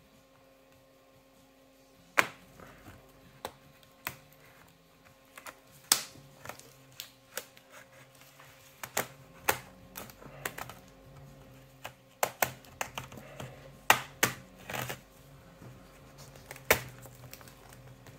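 Aluminium bottom cover of a Dell XPS 17 9700 laptop being pried off: an irregular string of sharp clicks and snaps as its retaining clips come loose, starting about two seconds in.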